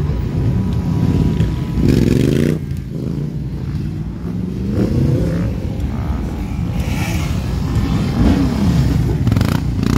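Motorcycle engines revving, the pitch climbing and falling in bursts that are loudest about two seconds in and again near eight seconds.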